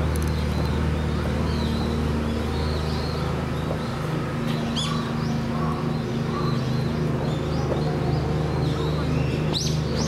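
Steady low drone of a mini excavator's diesel engine idling, with small birds chirping high over it and one brighter call near the end.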